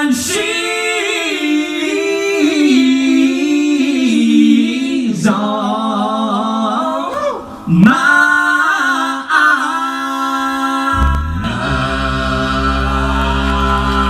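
A cappella singing: solo voices run melismatic vocal riffs with the pitch bending up and down, then about eleven seconds in the whole group comes in with a held chord over a deep bass voice.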